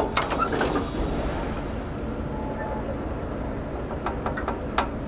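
Compressed air hissing steadily into a TEP60 diesel locomotive's bogie brake cylinder as its piston rod pushes out to apply the brake rigging. There is a sharp click at the start and a sharp knock near the end.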